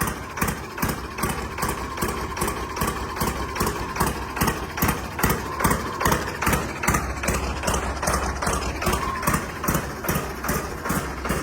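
New Holland 3630 Special tractor's diesel engine idling, fitted with a replacement Indian-made fuel injection pump. It runs with an even beat of about three pulses a second.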